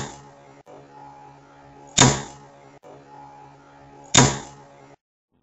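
Sharp pops of a small charge of oxyhydrogen (HHO) gas, about 20 cc mixed with 5 cc of air and slightly compressed, set off by a spark in a small test chamber. Three pops come about two seconds apart, each fading quickly, with a faint steady hum between them.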